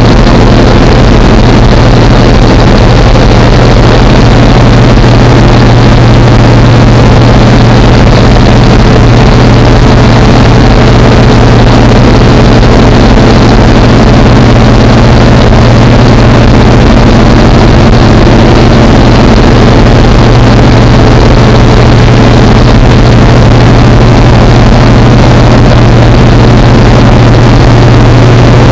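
Very loud, steady drone of an aircraft's engines heard inside the cabin, with a strong low hum and a wash of rushing noise, unchanging throughout.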